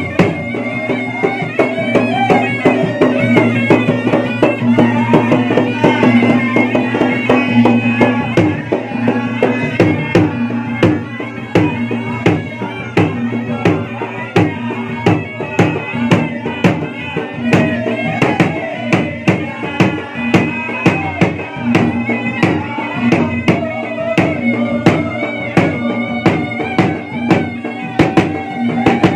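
Traditional Bugis-Makassar gendang music: two double-headed barrel drums (gendang) beaten with a stick and hands in a steady, fast repeating beat, under a continuous melody from a small blown pipe with a flared bell.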